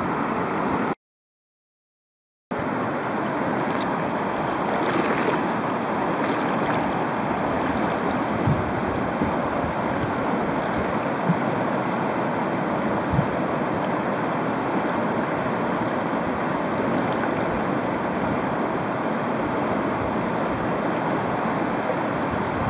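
Steady rushing of river rapids. The sound drops out completely for about a second and a half near the start, then the rushing resumes unchanged.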